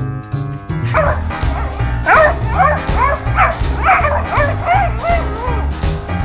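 Beagles yipping and whining as they play-fight: a quick run of short, high calls that rise and fall. They start about a second in and stop near the end, over background music with a steady beat.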